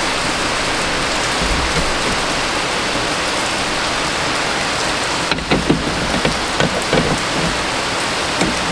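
A steady rushing hiss runs throughout. From about five seconds in come a series of light clicks and knocks as hands work the aftermarket window regulator and its bracket inside the car door.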